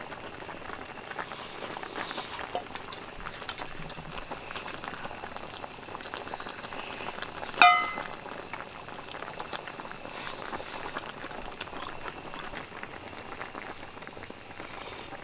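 Pot of soup bubbling at a steady boil, with small scattered clicks of utensils. About halfway through comes a single sharp, ringing clink, the loudest sound.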